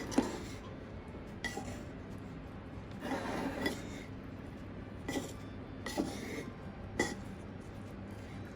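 A kitchen utensil scraping and rubbing against a bowl or dish in short separate strokes, about one a second with a longer scrape about three seconds in, some strokes giving a faint ringing clink.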